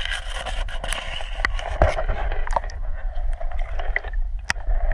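Water sound picked up by a submerged camera: a steady low rumble and watery hiss with scattered clicks and scrapes, and one sharp click about four and a half seconds in.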